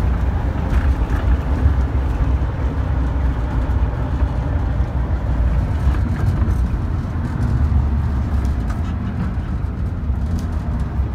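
1967 VW Westfalia camper bus's air-cooled flat-four engine running under way, heard from inside the cabin: a steady low rumble with road and body noise as the bus is driven up through the gears.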